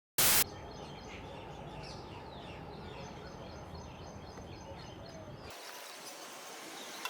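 Outdoor ambience with birds chirping over a steady background noise, after a short loud burst right at the start. About five and a half seconds in, the low rumble drops away and a thinner hiss with the birdsong remains.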